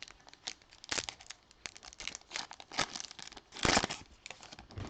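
Trading-card pack wrapper crinkling and rustling in the hands, a run of short rustles with one louder crinkle about three and a half seconds in.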